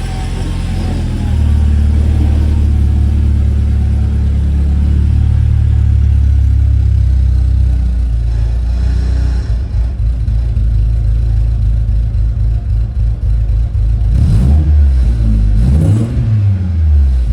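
Car engine idling loudly with a low, steady, muscle-car-like rumble. Near the end the pitch rises and falls a couple of times.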